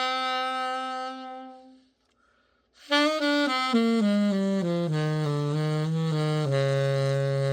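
Buescher 400 Top Hat & Cane alto saxophone being play-tested after a complete overhaul: a held note that fades away, a short pause, then a run of notes stepping down to the low end of the horn, ending on a held low note.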